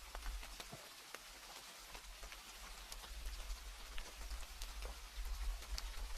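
Steady rain, with a constant hiss and many separate drops ticking on a surface at irregular moments, over a low steady rumble.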